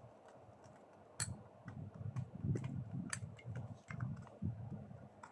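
Irregular light clicks and taps of small hard pieces being handled and set down on a hard surface, with soft low thumps; busiest from about a second in until near the end.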